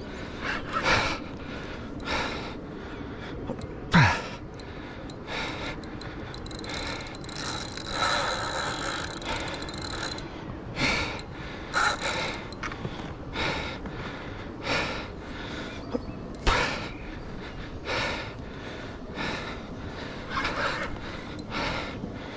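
An angler breathing hard in short gasps about once a second while straining against a heavy fish on a bent rod. For a few seconds midway there is a steadier mechanical whirr from the fishing reel.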